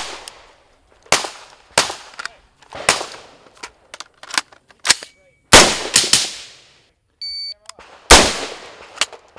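A string of about a dozen gunshots at irregular spacing, some much louder than others, each with a short echoing tail. A short electronic beep sounds about seven seconds in.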